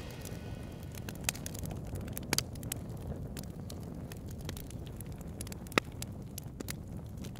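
Charcoal fire burning under a grill grate: a low steady rumble with scattered sharp crackles and pops, one of them louder about three-quarters of the way through.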